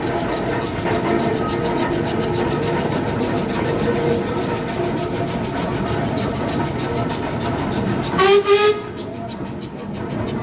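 A steam engine running with a steady rapid beat, then a short, loud blast on its steam whistle about eight seconds in.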